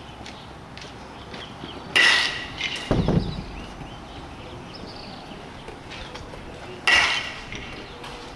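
Baseball bat hitting pitched balls twice, about five seconds apart: each hit is a sharp ringing ping, typical of a metal bat. A dull thump follows about a second after the first hit.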